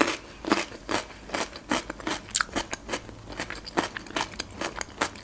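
Close-miked chewing of fresh cucumber: a steady run of crisp crunches, about three a second.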